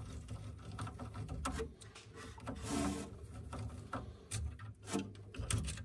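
Small screwdriver turning out a screw from a 3D printer's toolhead carriage. Light scattered clicks of the tool and screw, with a brief scraping rub about halfway through.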